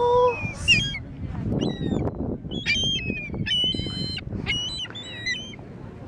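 Gulls calling: a held call fading out just after the start, then a run of short, high calls, some overlapping, that step up and down in pitch, from about a second and a half in until near the end.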